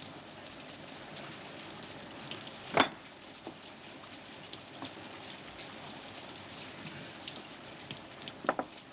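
Steady hiss of rain, with tableware clinking: one sharp clink about three seconds in and two quick clinks near the end as dishes are passed.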